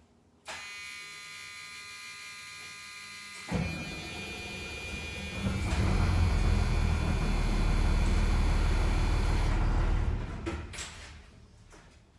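School bus engine being started: a steady electronic warning buzz sounds with the ignition on, then about three and a half seconds in the starter cranks and the engine catches and runs loudly for several seconds before it is shut off and dies away near the end. It starts with the emergency-door alarm wires cut, so the door's start interlock still lets the bus run.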